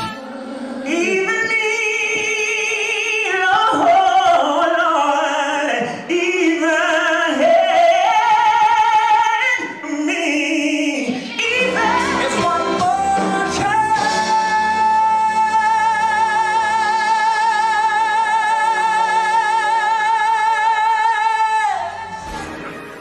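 Male singers belting at A4 in live concert recordings: first a sung phrase moving up and down, then, about twelve seconds in, one note held with a steady vibrato for some eight seconds over a band, ending just before the end.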